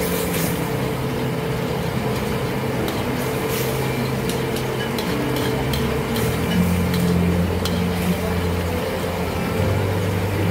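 Chilli sauce bubbling and sizzling in a steel wok over a gas burner, with a steady hiss and hum underneath. A metal ladle stirs it and clinks against the wok now and then.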